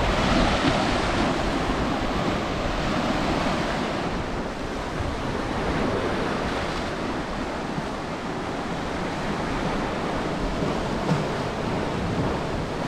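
Lake Ontario waves washing on a rocky shore: a steady rush that swells and eases gently, with some wind on the microphone.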